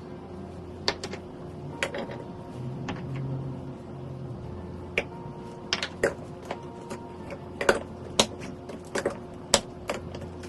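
Irregular sharp clicks and taps of things being handled in a kitchen, over a faint steady hum.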